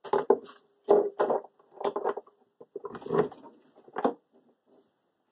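A run of about five clunks and scrapes, with a short ring after some of them, as the CabKing lapidary machine's motor unit is set down and shifted into place on its mounting studs.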